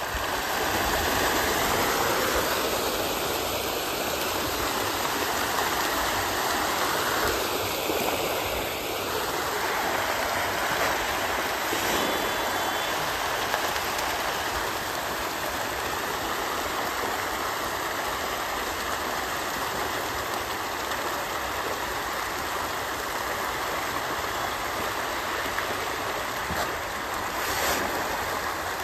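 A crowd of farmed fish thrashing at the surface of a pond in a feeding frenzy over thrown-in feed, making a continuous mass of splashing water.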